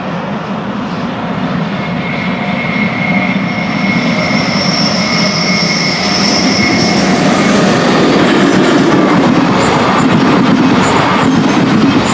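ÖBB class 1144 electric locomotive and Cityshuttle coaches approaching and passing, the rumble steadily growing louder. A thin high tone is held for a few seconds early on, and the wheels clack over the rails near the end.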